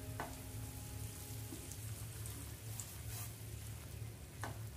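Sugar syrup bubbling and sizzling in a hot nonstick pan, a faint steady crackling hiss. A few light clicks come from the silicone brush against the pan.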